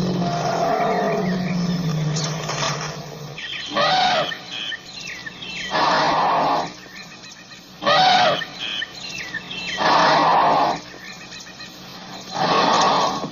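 An elephant calling: a low rumble for the first three seconds or so, then five short, loud calls about two seconds apart, some pitched trumpeting and some harsh and noisy. Birds chirp faintly behind.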